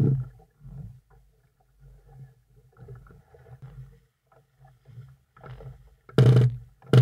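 Small waves lapping and slapping against a boat close to the microphone, with two loud splashes about six and seven seconds in.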